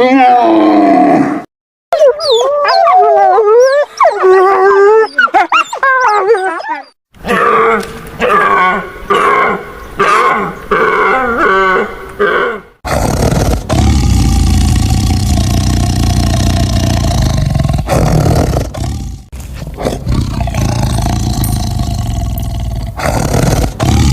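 A run of different animal calls one after another. First a pitched call, then several seconds of wavering, gliding high calls, then a string of short repeated calls. From about halfway through comes a long, low, rough, roar-like sound.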